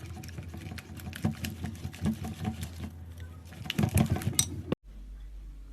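Slime being squished and poked by hand: a quick, irregular run of small sticky clicks and pops. It cuts off abruptly near the end, leaving a quieter low hum.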